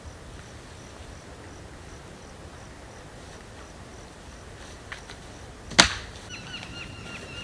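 Quiet woodland ambience with a faint high insect buzz pulsing steadily. Near the end comes a single sharp snap, the loudest sound. Right after it a bird begins a quick series of repeated chirps, about three a second, each dropping slightly in pitch.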